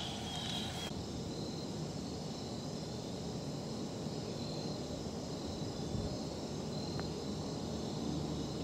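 Steady outdoor background noise with faint insect trills, and a single light click of a putter striking a golf ball about seven seconds in.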